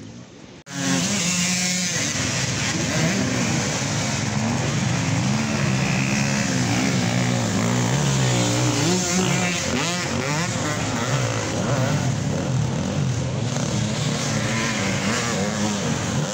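Off-road racing motorcycle engines revving, the pitch rising and falling again and again as the bikes race. The sound starts abruptly under a second in.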